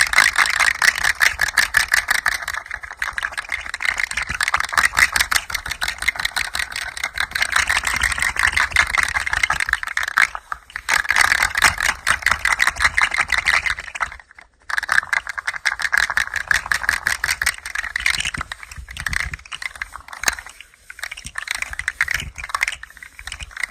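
A hand-played rattle toy being moved, giving a dense, fast clatter of small clicks. The clatter breaks off briefly twice and thins to scattered clicks near the end.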